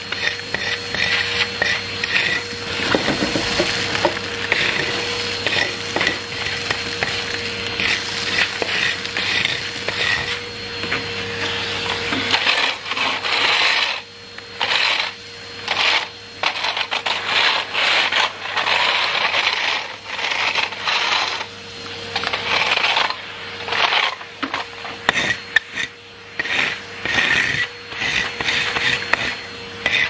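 Numatic Henry vacuum cleaner running with a steady whine, while its floor tool scrapes over concrete paving slabs and grit rattles up the hose in irregular bursts that briefly drop out several times in the second half.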